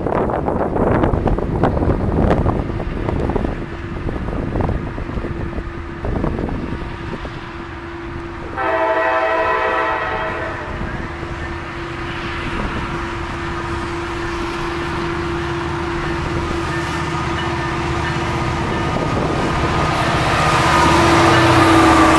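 Norfolk Southern SD60E locomotive's air horn blowing as the freight approaches, with one loud horn blast about nine seconds in. The horn and engine grow louder until the locomotive and its autorack cars pass close by near the end, with rumble and wheel noise on the rails. Wind buffets the microphone during the first several seconds.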